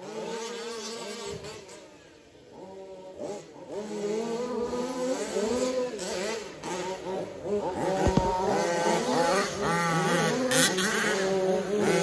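Several radio-controlled 4WD race trucks revving around a dirt track, their motors rising and falling in pitch as they accelerate and back off. The sound dips about two seconds in and is louder from about four seconds on, with a brief thump just after eight seconds.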